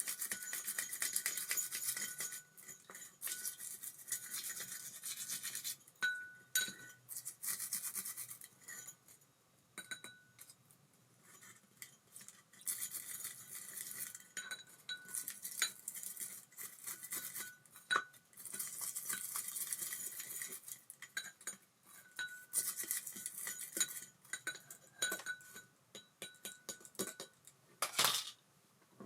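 Hands working on the small metal parts of an Abu Garcia Ambassadeur 5500C baitcasting reel: light scraping, ticking and small clinks in spells of a few seconds, with short pauses between them.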